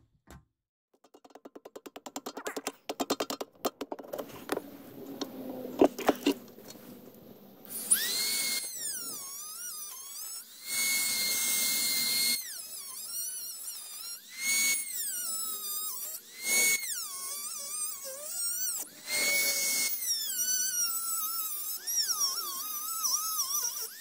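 Dremel rotary tool grinding galvanized sheet metal: a high-pitched whine that sags and recovers in pitch as the bit bites, coming in several bursts with short pauses from about a third of the way in. Before it, a scatter of light taps and knocks.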